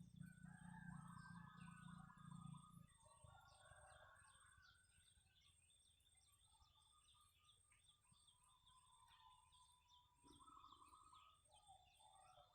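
Several birds calling and chirping faintly, some with short warbled phrases, over a thin steady high-pitched tone. A low hum sounds under them for the first three seconds.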